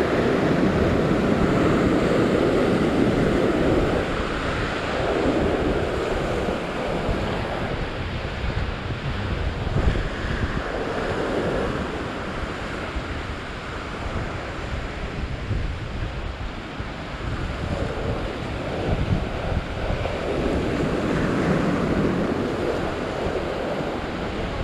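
Ocean surf surging and breaking white over coastal rocks, swelling and ebbing every few seconds, with wind buffeting the microphone as a low rumble underneath.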